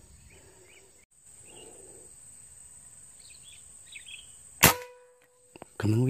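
A single sharp shot from a PCP air rifle about three-quarters of the way in, followed by a ringing tone for about a second. A steady high insect drone runs underneath.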